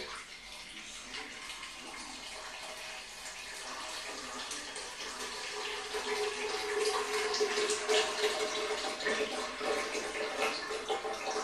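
Cinnamon tea poured in a steady stream from a stainless steel pitcher into a plastic blender jar, splashing onto the ingredients inside. The pouring grows louder as the jar fills.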